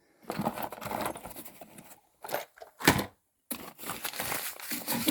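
Rustling and clattering of small electronic parts being handled and rummaged through, in irregular spurts with a couple of sharper knocks near the middle.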